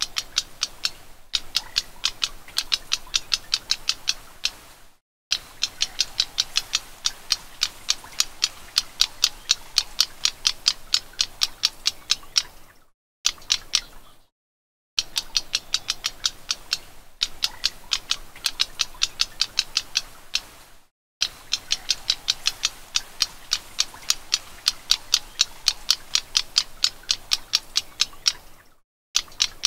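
Black-browed reed warbler calling in a rapid run of sharp, chattering notes, about five a second. The phrases last several seconds each and stop abruptly into short gaps of dead silence, like an edited playback loop.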